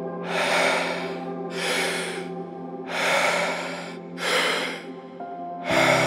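A person doing Wim Hof power breathing: deep, paced in-and-out breaths, about five rushes of air one after another, over a steady ambient music drone. Deeper bass notes come into the music near the end.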